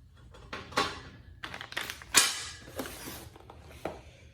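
Tools and packaging being handled and set down on a work table: a scattered series of taps and knocks, the loudest about two seconds in.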